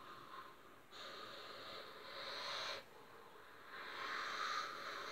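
A person's breathy exhalations: two long hissing breaths close to the microphone, the first starting about a second in and stopping abruptly, the second swelling up near the end.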